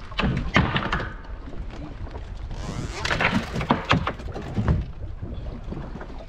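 Scattered knocks and taps on a small wooden fishing boat as a handline is worked over the side, with wind rumbling on the microphone and a brief hissing rush near the middle.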